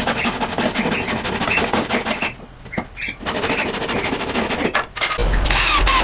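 Handsaw rasping through a wooden batten in quick strokes, with a short pause about two and a half seconds in. Near the end a cordless drill starts up, driving a screw into the wood.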